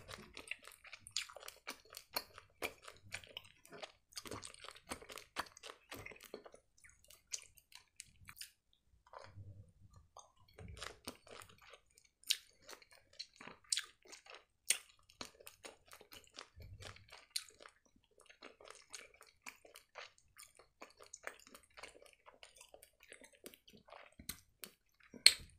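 Close-miked chewing of a gummy worm: soft, wet mouth clicks and squelches with now and then a sharper click, several of them around the middle.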